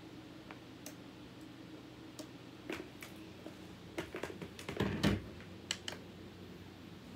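Scattered light clicks and knocks, thickest about four to five seconds in, with a duller thump near five seconds, over a low steady hum.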